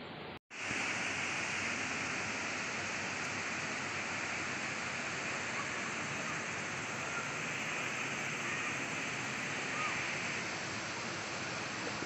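Steady, even rush of a waterfall, starting abruptly after a brief silence about half a second in.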